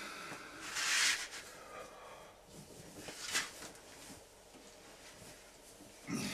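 A man's movements as he dresses and handles bedding: a short, fairly loud rustle about a second in, then faint rustling and a single light click a little after three seconds.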